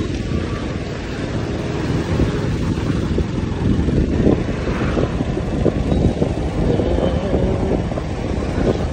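Commuter motorcycle engine running steadily while riding along a road, with wind rushing over the microphone.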